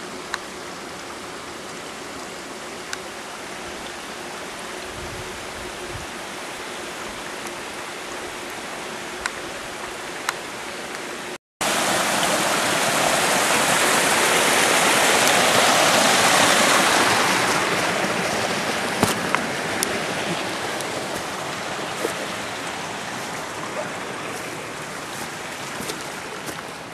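Small waterfall, its water rushing and splashing in a steady hiss. It breaks off briefly about a third of the way through and comes back louder, swelling and then easing off slowly, with a few sharp clicks here and there.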